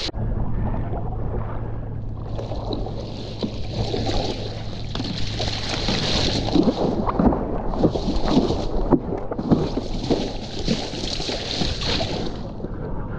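Water splashing and rushing against the nose of a stand-up paddle foil board as it is paddled through chop, over a steady low rumble of wind on the microphone. The hissing rush swells and fades three times, with a cluster of small splashes in the middle.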